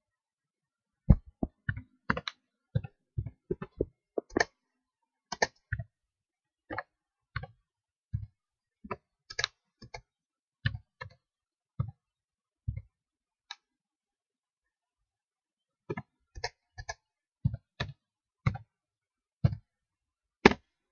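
Typing on a computer keyboard: irregular single keystroke clicks, with a pause of about two seconds just past the middle.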